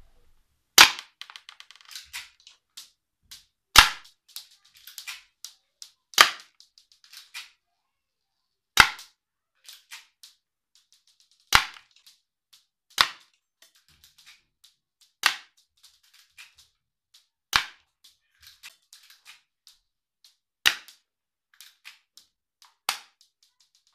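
Spring-powered airsoft pistol (Cybergun Taurus PT92) fired shot by shot: about ten sharp snaps, one every two to three seconds, with fainter clicks in between, until the magazine is empty.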